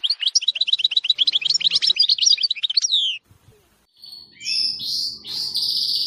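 A finch singing: a fast trill of repeated high notes that ends in a falling note about three seconds in, then after a short pause another run of song.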